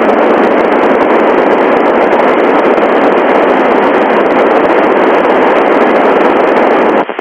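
Loud, steady FM hiss from the Icom IC-9700 receiver tuned to the satellite's FM downlink, with no station coming through: the empty channel sounding between transmissions. It cuts out briefly near the end.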